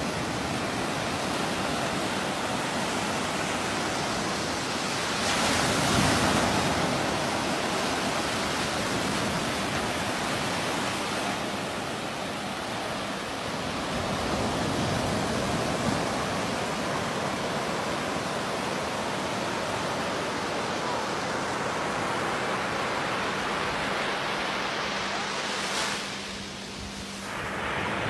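Small waves washing and breaking in a steady rush of water noise, swelling louder about six seconds in.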